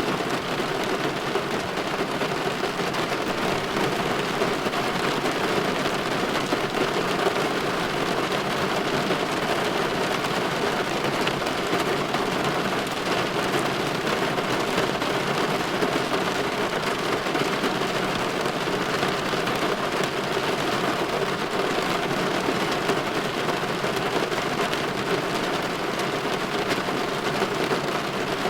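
Steady rain falling against a window pane, an even, unbroken patter and hiss.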